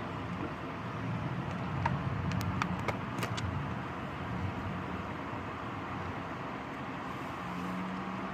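Steady hiss of heavy rain with a low rumble swelling about a second in and fading a few seconds later, along with a handful of sharp clicks or drips.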